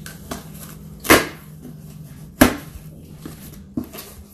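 Cardboard shipping box being pulled open by hand: three sharp cracks of packing tape and cardboard flaps coming apart, a second or so apart, with softer scraping and rustling between.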